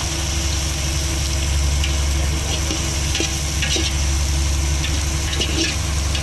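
Onions, green chillies and brinjal sizzling as they fry in oil in a steel pot, with a steel ladle stirring and scraping against the pot now and then. A steady low hum runs underneath.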